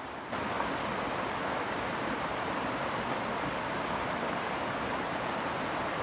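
Mountain stream rushing over a run of small cascades, a steady rushing of water that grows louder about a third of a second in.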